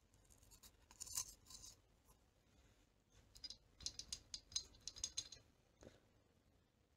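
Faint, quick scratching and clicking in two clusters, about a second in and again from about three to five and a half seconds, as a finger scrapes inside the bore of a Honda P50 moped's removed cylinder barrel, which holds loose aluminium shavings.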